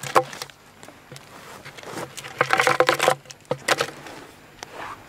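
Rustling and handling noise in dry grass as the fuse of a large firework shell is draped over its mortar tube, with a short low hum about two and a half seconds in.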